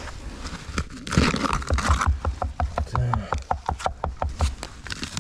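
Digging by hand in a pit of clayey soil. A loud scrape and rustle comes about a second in, followed by a quick run of knocks and scuffs, several a second, that dies down near the end.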